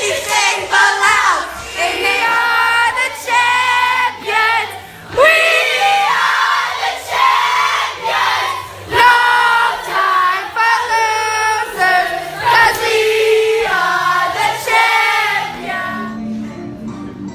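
Singing: voices carrying a melody with held and sliding notes, fading down near the end.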